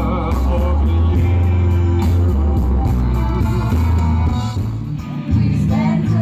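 A man singing into a microphone over an amplified backing track with a heavy bass line, played through a stage PA. A little past five seconds the sound cuts to a group of young singers.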